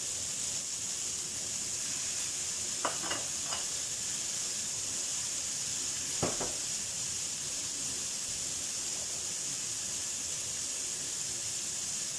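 Flour-dredged cod pieces sizzling steadily in hot oil in a stainless steel frying pan. A few light knocks come about three seconds in and once more about six seconds in.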